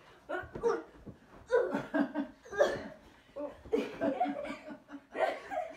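People laughing and giggling in short bursts during a pillow fight, with a quick run of 'ha-ha' pulses about four seconds in, and soft thumps of pillows being swung and landing.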